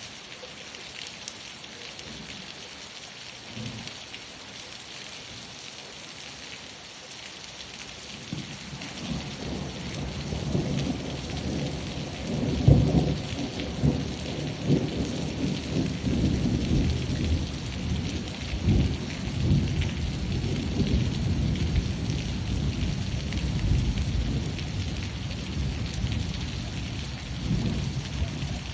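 Steady rain falling, with thunder: a low rumble that swells about eight seconds in, peaks with a loud crack-like surge near the middle, and keeps rolling through the rest.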